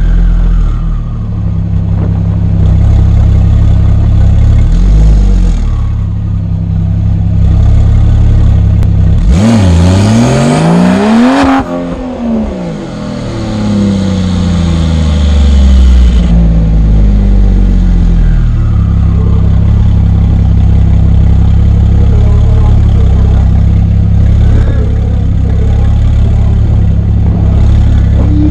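Porsche 991 Turbo S and Audi RS6 engines running at a steady low idle. About ten seconds in an engine revs hard, its pitch rising then falling, with further falling revs over the next several seconds, before the steady idle resumes.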